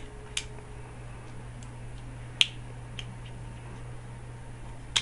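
A few sharp, light clicks, the loudest about two and a half seconds in, over a steady low hum.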